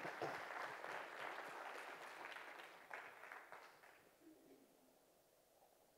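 Congregation applauding, fading out about four seconds in.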